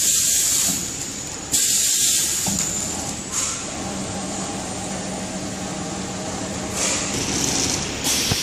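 Horizontal flow wrapping machine running with a steady mechanical hum, broken by loud hissing bursts about a second long: one at the start, a longer one about two seconds in, and shorter ones near the end.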